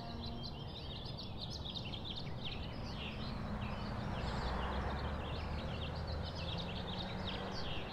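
Many small birds chirping busily over a steady background hiss, with the last of a singing bowl's ringing dying away at the very start.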